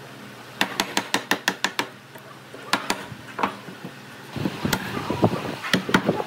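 Chisel being struck to chop a mortise in an old hardwood railway sleeper: a quick run of about seven sharp knocks, a few single knocks, then a denser clatter of knocks near the end.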